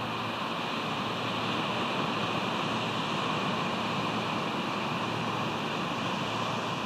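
Steady rushing of wind and surf on the nest camera's microphone, even and unbroken, with no eagle calls.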